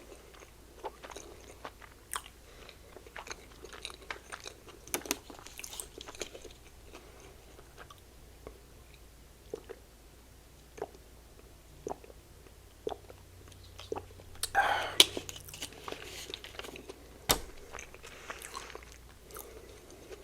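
Close-miked chewing of soft slider burgers: small wet mouth clicks and smacks scattered throughout. About three-quarters of the way through there is a louder burst of noise, and a sharp click a couple of seconds later.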